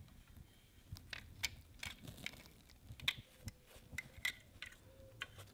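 Faint, irregular clicks and taps of a base gasket being worked down over the cylinder studs and connecting rod of a Kawasaki KX100 two-stroke crankcase.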